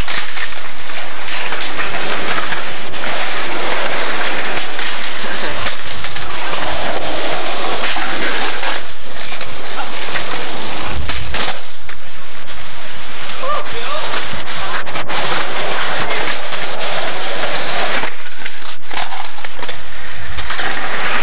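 Skateboards rolling on concrete, with several sharp board clacks and landings, recorded loud and hissy on a camcorder microphone.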